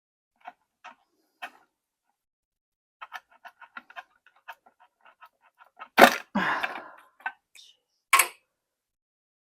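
Small hand-work noises from tools and wiring in the lathe's relay compartment: a few light clicks, then a rapid run of small ticks for a few seconds, a loud sudden knock with a short noisy rattle after it, and one sharp click near the end.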